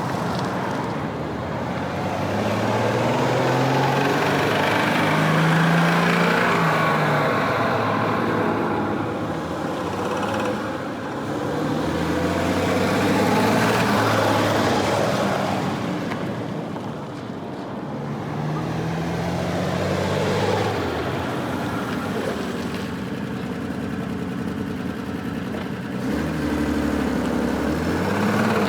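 Volvo 164's B30 straight-six engine pulling the car along, its revs climbing and dropping several times as the manual gearbox is shifted, over road and wind noise.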